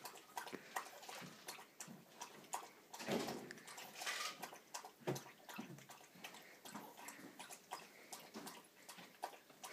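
A Maltese dog lapping water, a quick run of small wet clicks and splashes, louder for a moment about three seconds in.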